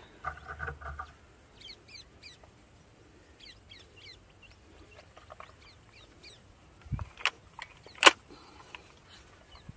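Small birds chirping faintly, then a break-barrel air rifle, an Armor Hurricane Model 18, being cocked and loaded: a low thud about seven seconds in, a click, and one sharp snap just after eight seconds, the loudest sound.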